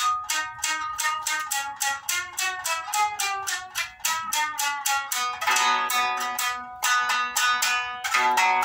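Shamisen played in a fast run of plucked notes, about five a second, each note struck sharply and ringing briefly; about halfway through, lower notes join and the sound grows fuller.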